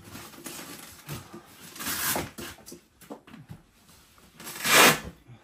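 Straps being pulled loose and sliding against a large polystyrene foam crate: short scraping, rubbing swishes on the foam, one about two seconds in and a louder one near the end, with lighter scuffs between.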